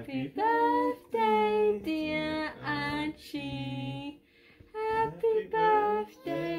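Singing: one voice holding sustained notes in short phrases, with a brief pause about two-thirds of the way through.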